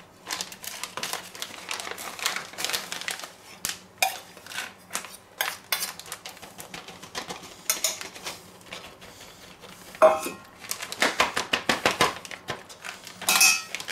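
A metal spoon scraping and clinking against a small stainless steel bowl as a thick tomato-paste marinade is spooned out, with a louder ringing knock of the bowl about ten seconds in, followed by a run of quick crinkling clicks from a plastic freezer bag being handled.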